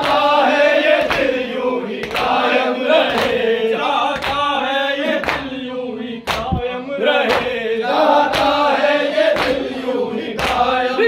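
A group of men chanting a Shia mourning noha in unison, with the sharp slaps of hands beating on chests (matam) landing about once a second in time with the chant.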